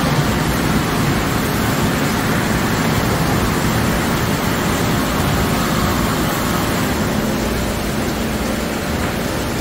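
Automatic tunnel car wash running, a steady, even rushing noise of its water spray and equipment.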